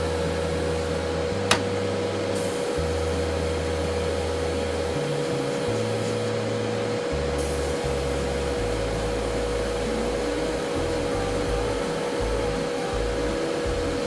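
Background music with a low bass line that changes note every second or so, over a constant steady hiss, with one sharp click about one and a half seconds in.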